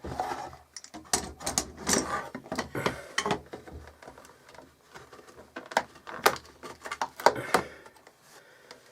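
Handling noises from the moulded leather and its clamped form: a run of irregular clicks, knocks and short rubbing sounds.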